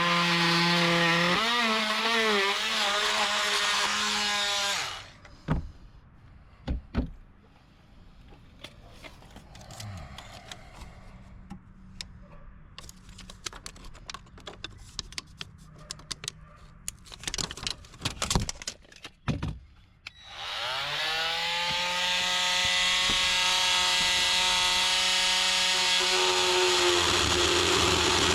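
Oscillating saw running and plunge-cutting into dry 2x wood, its pitch wavering under load, then stopping about five seconds in. A quieter stretch of scattered knocks and taps follows. About twenty seconds in, the saw starts again, its pitch rising as it comes up to speed, and runs steadily.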